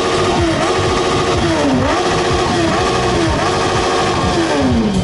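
A vehicle engine revving hard over and over, its pitch dipping and climbing several times and sliding down near the end.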